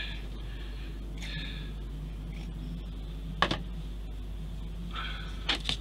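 Quiet room tone with a steady low hum, a soft breath or two, and one sharp click about three and a half seconds in. There are a few small handling clicks near the end.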